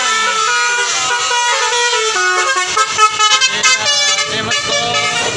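Tour bus's telolet basuri horn playing a tune: a run of quick stepped horn notes, fastest and loudest around the middle.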